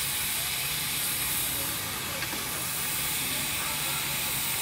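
Miniature steam locomotive hissing steadily as it lets off steam, with one small click about two seconds in.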